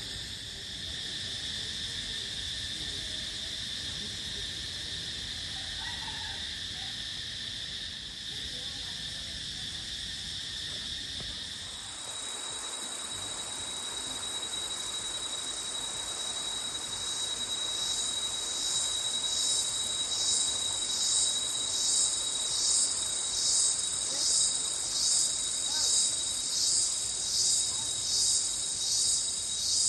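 Insects chirring steadily in a high, continuous drone. About twelve seconds in the sound changes abruptly, and a loud pulsing insect call builds, rising and falling about once a second.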